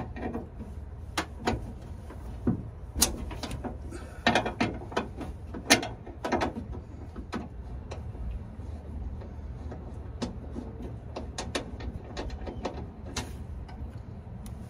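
Socket ratchet wrench clicking as bolts under a pickup truck's hood are loosened, with irregular clicks and a few sharper knocks of metal on metal, and quicker runs of ratchet clicks about ten seconds in.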